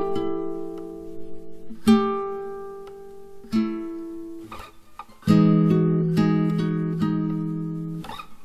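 Solo acoustic guitar music: chords plucked and strummed, each left to ring and fade. There is a short lull about two thirds of the way in, then a loud strummed chord.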